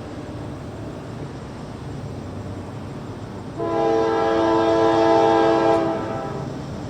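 Steady rumble of a passing train, then about three and a half seconds in a Nathan K5LA five-chime locomotive air horn sounds one long blast, several notes together, lasting about two and a half seconds before fading.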